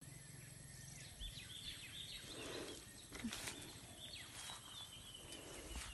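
Faint rural outdoor ambience with birds chirping: runs of short, quick, falling high chirps, mostly in the first half.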